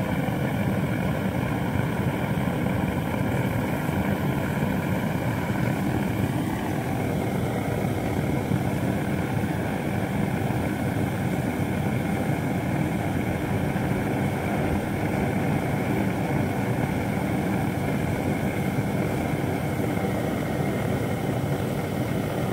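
Blowtorch running steadily, heating oxalic acid in a vaporizer so the acid's fumes fill the beehive against varroa mites.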